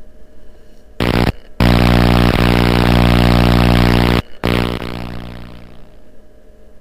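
Intro sound effect: a loud, low electric buzz that cuts in briefly about a second in, then runs steadily for about two and a half seconds, breaks off, and comes back once more before fading away.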